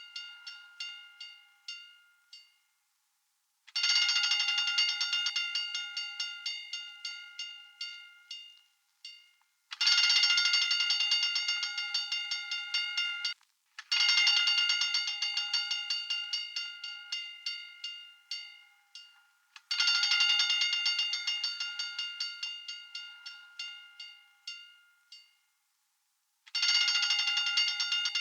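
Hand-cranked fire alarm bell ringing in bursts of rapid strokes, each burst lasting several seconds before its strokes slow and die away into a short pause. One burst is fading at the start, four more follow, and a fifth begins near the end.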